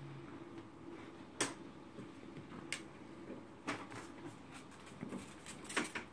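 Side window panel of a Corsair 750D computer case being unlatched and lifted off: a sharp click about a second and a half in, another near three seconds, then a run of clicks and knocks. A faint steady hum runs underneath.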